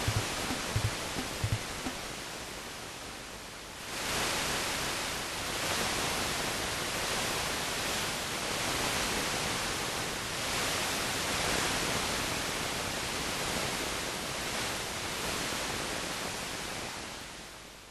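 Yamaha PSS-270 keyboard's 'wave' preset: a hiss of synthesized surf noise that jumps up about four seconds in, then swells and ebbs in slow surges and fades away at the end.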